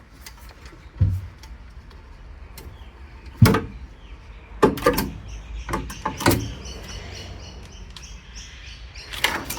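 Metal parts of a Rheem continuous-flow hot water heater being worked loose by hand: about six sharp knocks and clanks with scraping in between and a thin squeak in the middle, as a part is tugged that won't slide free.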